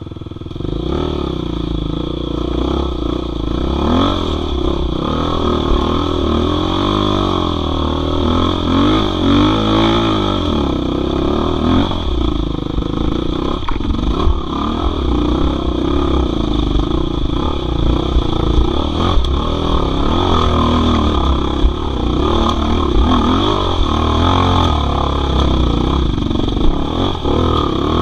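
Off-road dirt bike engine revving up and down under load as it climbs a rough trail, rising sharply about a second in as the bike pulls away.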